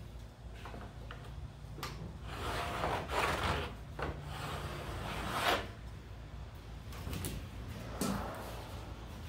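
Several rubbing, sliding scrapes, each lasting under a second, with a few sharp clicks between them over a low steady hum.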